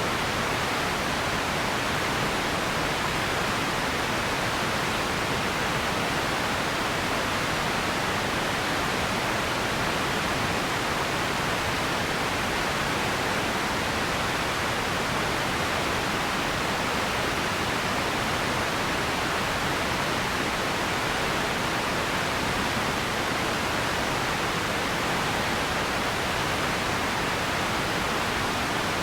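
Radio static: a steady, even hiss with no tones or crackles, strongest in the upper middle.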